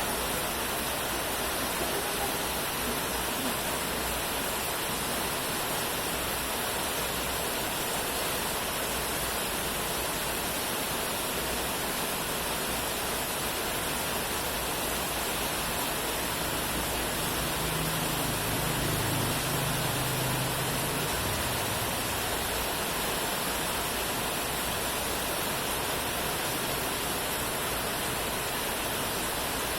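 Steady rain falling as an even, unbroken hiss. A faint low rumble swells briefly about two-thirds of the way through.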